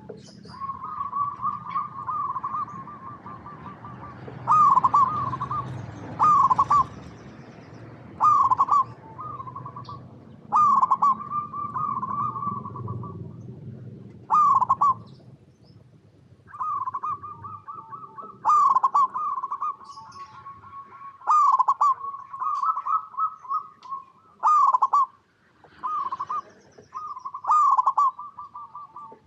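Zebra dove (perkutut) cooing: short phrases of quick rolling coos, repeated every one to two seconds. A low background rumble fades out about halfway through.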